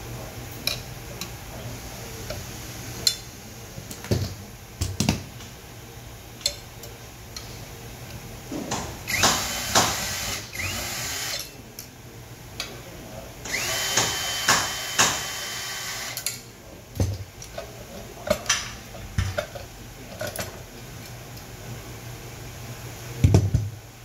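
Cordless drill-driver running in two short spells of two to three seconds each, with a steady whine, as screws are driven out to take the housing apart. Around them, scattered clicks and clinks of screws and metal parts being handled, and a heavier knock near the end.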